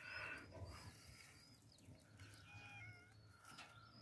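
Near silence: faint outdoor background with a few faint high chirps.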